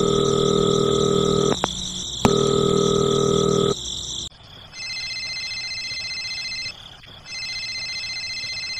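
Phone ringing sound effect. First come two long, low buzzing rings of about a second and a half each with a short gap between them, then after a brief pause two quieter, high-pitched rings of about two seconds each.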